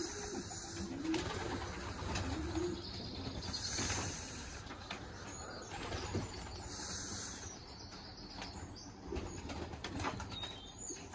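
Young racing pigeons' wings flapping as they fly about and land, with low pigeon cooing in the first few seconds.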